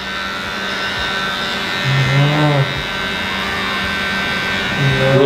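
Electric pet clippers buzzing steadily as they shave a dog's fur. A short low vocal sound comes twice, about two seconds in and again near the end.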